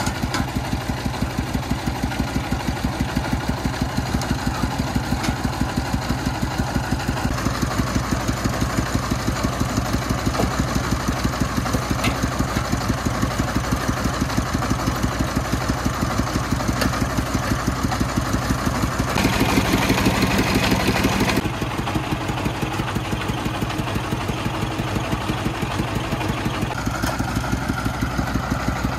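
Single-cylinder diesel engine of a công nông, a homemade three-wheeled dump truck, idling with a steady, rapid, even beat while its dump bed is raised. About two-thirds of the way in, a louder broad noise lasts about two seconds.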